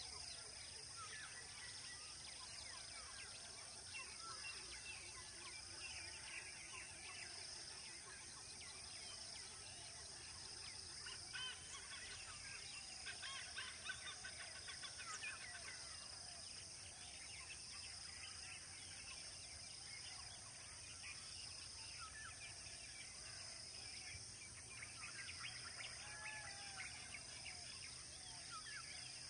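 Faint chorus of many birds chirping and calling, densest about halfway through and again near the end, over a steady high-pitched hiss.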